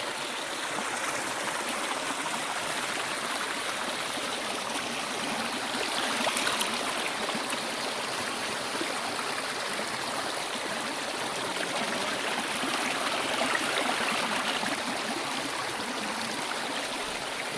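Mountain stream rushing and splashing over rocks and boulders, a steady rush of water that swells a little now and then.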